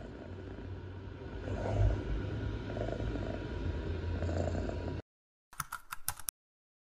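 Ragdoll cat purring, a low steady rumble with a slow pulse, which stops abruptly about five seconds in. A short quick run of clicks follows, like keys being typed.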